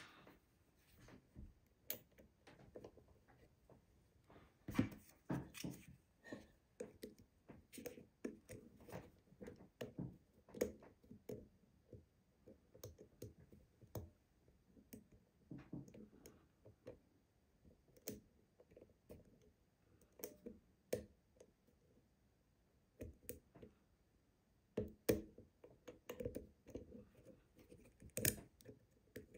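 Lock picking in an old UAP euro cylinder: the hook pick and tension wrench make faint, irregular small clicks and scrapes against the pins, a little busier about five seconds in and again near the end.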